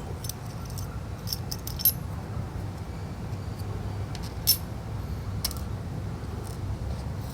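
Light metallic clicks and taps of tiny phone screws and small tools being handled on a work surface, scattered and irregular, with two sharper clicks about two and four and a half seconds in, over a steady low hum.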